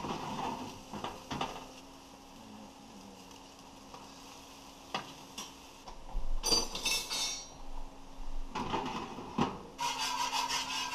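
Brief metallic clatter and clinks of an oven rack and its pan. Then, from a little past two-thirds of the way in, a wire whisk scrapes rapidly and repeatedly around a cast-iron skillet of thickening sauce.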